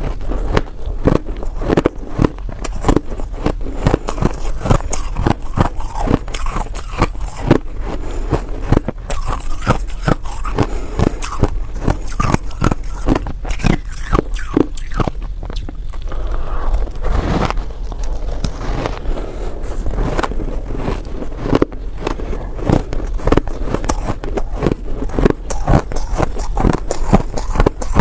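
Close-miked crunching of reshaped shaved ice being bitten and chewed: a continuous run of crisp crunches, several a second, crunchy and powdery.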